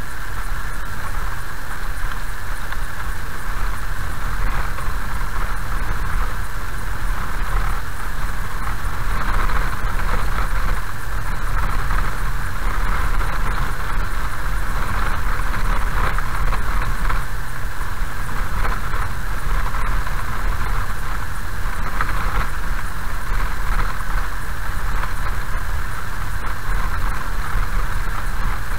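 Car driving slowly on a gravel road, heard from inside the cabin: a steady low engine rumble with an even hiss of tyre and road noise.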